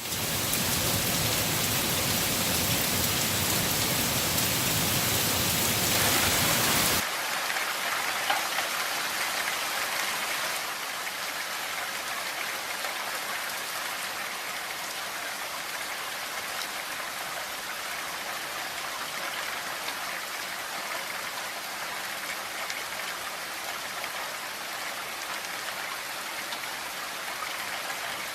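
Steady rain falling, a dense hiss of drops. About seven seconds in it switches abruptly from a fuller, heavier rain with a low rumble to a lighter, thinner rain hiss, as one rain recording cuts to another.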